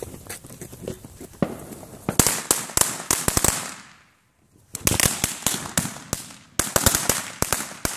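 Small consumer firework popping and crackling: rapid, irregular sharp pops in clusters, thickest from about two seconds in, stopping briefly about four seconds in, then starting again and running until near the end.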